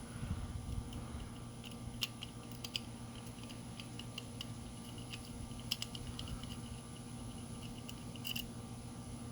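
Light, irregular metallic clicking and scraping of a lock-pick rake worked in and out of a disc padlock's keyway under tension, a few sharper clicks standing out. The pins do not set and the lock stays shut.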